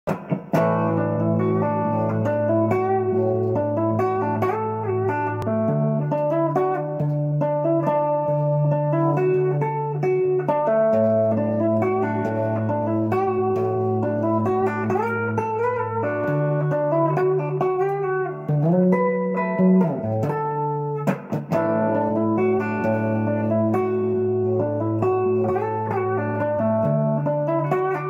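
Electric guitar, a white SG-style solid-body, playing a clean melodic line with bent notes. Sustained low notes underneath change every five seconds or so.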